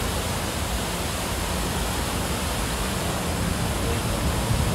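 Fountain water splashing in a steady, even rush.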